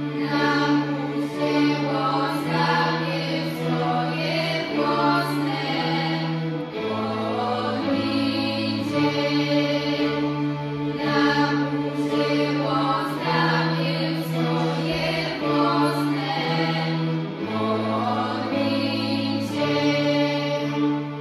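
Choir of women and children singing a slow hymn, accompanied by violins and a cello; the cello holds long bass notes that shift every couple of seconds under the voices.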